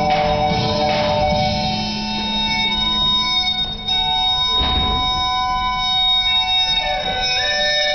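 Instrumental dance music: long held melody notes over a low steady drone, with a few struck beats near the start and a heavy thump about five seconds in.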